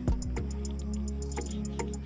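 Background music: held low bass notes under a fast, even ticking beat, with a sharp hit just after the start.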